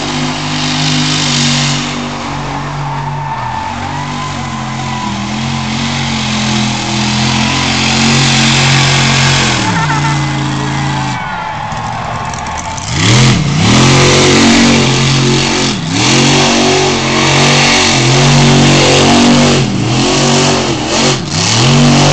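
Monster truck engine running hard as it drives through a mud pit. After a dip about halfway through, it is revved up and down again and again, roughly every two seconds, while the truck spins in the mud.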